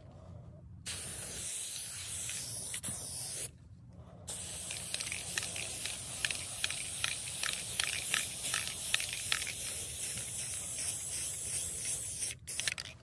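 Martha Stewart aerosol spray paint can hissing as paint is sprayed in two long passes, with a short pause about three and a half seconds in. A run of short ticks sounds through the middle of the second pass.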